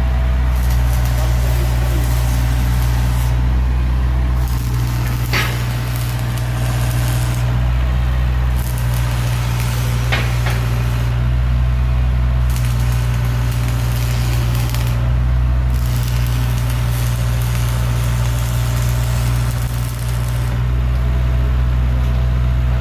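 Electric arc welding: the arc crackles and sizzles in runs of two to four seconds with short breaks between, over a steady low machine hum.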